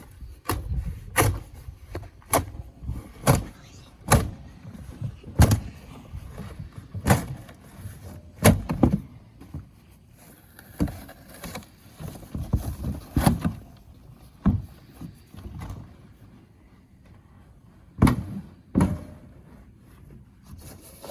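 A series of sharp thuds, roughly one a second, with a pause of a few seconds before two final ones.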